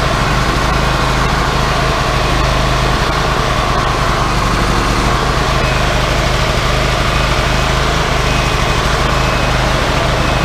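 Wood-Mizer LT40 HD G24 sawmill's gas engine running steadily, just after being started.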